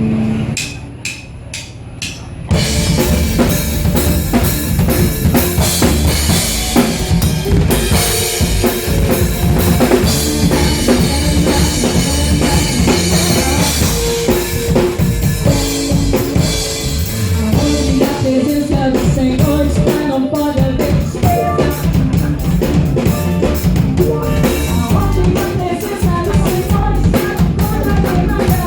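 Live band starting a song: a few evenly spaced drumstick clicks count it in, then drum kit and band come in together, playing loudly with a steady beat.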